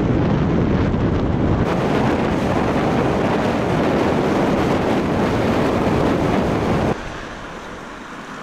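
Wind buffeting the GoPro Hero 5's microphone as the mountain bike rolls fast down a paved lane, a loud, even low rumble; it drops sharply quieter about seven seconds in.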